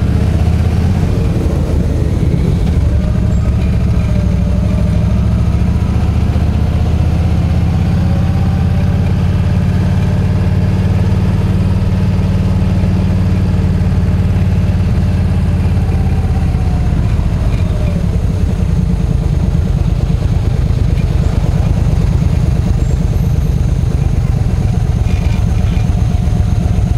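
Yamaha V-Star 1300's V-twin engine running at low speed in slow town traffic, its pitch rising and falling a little. It grows softer in the last third.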